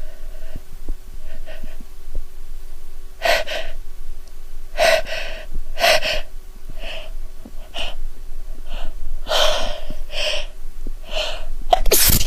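A woman's sharp, gasping inhalations as a soap-induced sneeze builds, about ten of them in a row, ending in a loud sneeze near the end.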